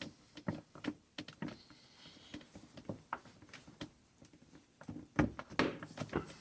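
Scattered small clicks, taps and rustles of hands working at the winch relay's wiring and rubber terminal boot, with a louder knock and a cluster of clicks about five seconds in.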